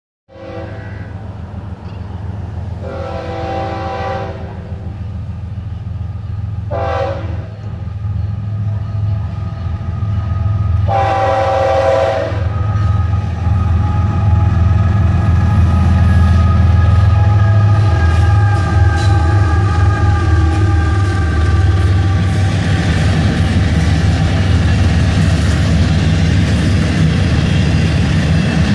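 Florida East Coast Railway diesel locomotives approaching a grade crossing and sounding the air horn: a long blast about three seconds in, a short one near seven seconds, another long one around eleven seconds, then the horn held more softly for several seconds, over the steady drone of the engines growing louder. In the last few seconds the stack train's freight cars roll past with a rumble and wheel clatter.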